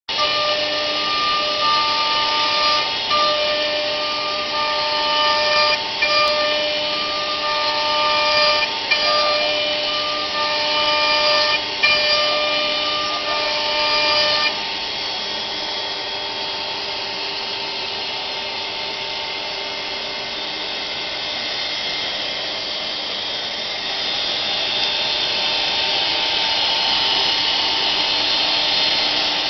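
CNC router spindle running and cutting a 3D relief carving, with a steady whine and several motor tones that switch on and off every second or so as the axes move. About halfway through the stop-start tones end and it settles into a steadier whine and hiss.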